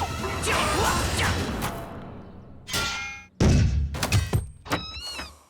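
Cartoon action sound effects over music: a noisy rush for the first couple of seconds, then a heavy thud about three and a half seconds in, followed by a few sharper hits and short bending tones.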